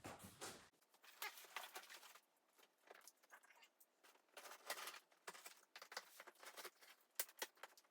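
Faint handling of a cardboard shipping box being opened: scattered small scrapes, taps and rustles in short irregular bursts.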